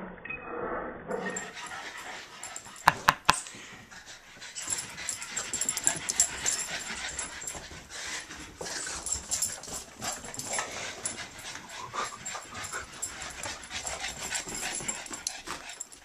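Two Boston terriers playing rough: scuffling and clicking with small whimpers, and three sharp knocks in quick succession about three seconds in.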